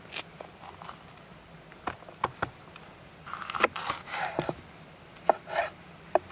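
Chef's knife slicing crisp light-green peppers on a wooden cutting board. Crunching cuts through the pepper flesh come with about six sharp knocks of the blade on the board; the loudest is a little past the middle.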